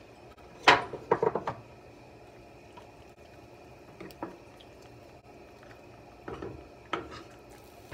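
Pre-made tortellini tipped from a bowl into a pot of boiling water: a loud splash about a second in with a quick flurry of smaller splashes right after, then a few light knocks.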